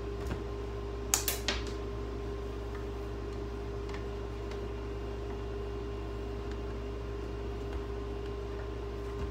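Steady mechanical hum, like a running fan, with a quick run of three sharp clicks about a second in and a few faint ticks after, as small parts are handled.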